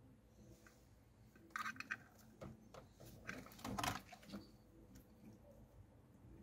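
Plastic wiring plugs and RCA connectors clicking and rattling as they are handled, in a few short bursts of clicks through the middle, the loudest a little over halfway in.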